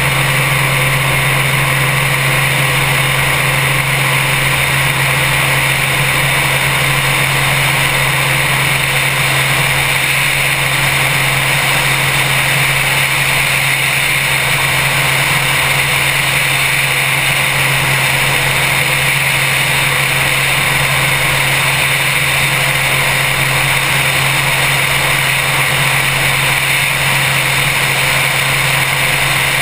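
Helicopter in cruising flight: steady, loud engine and rotor noise with a constant low hum, picked up by a camera mounted on the outside of the fuselage.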